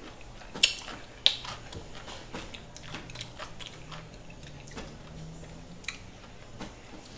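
A person chewing food close to the microphone: wet, crunchy bites with sharp mouth clicks. The two loudest clicks come in the first second and a half.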